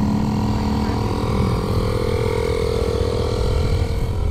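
Car engines idling, a steady low rumble with a held hum that shifts to a higher pitch about a second and a half in.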